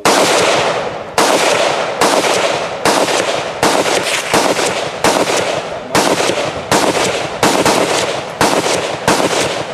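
Gunshots fired in quick succession, about fourteen shots at one to two a second, each followed by a fading echo.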